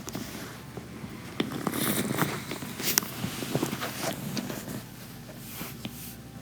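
Dryer's lower cowling being handled and fitted into place: scattered clicks and knocks over rustling handling noise, busiest in the middle, with the sharpest click about three seconds in.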